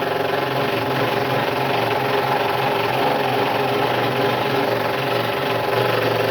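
Scroll saw running steadily, its blade going up and down as it cuts along a curve in a wooden puzzle piece.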